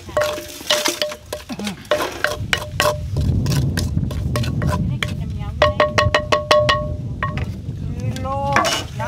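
Wooden pestle knocking in a clay mortar while pounding and mixing papaya salad (som tam). The knocks come in irregular runs, with a fast run of about seven a second just past the middle, and each leaves a short ringing tone from the mortar.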